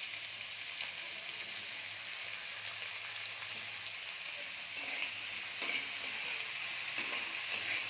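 Chopped onion, ginger, garlic and whole spices frying in mustard oil in a kadai, with a steady sizzle. From about halfway in, a spatula stirs and scrapes the pan in short strokes.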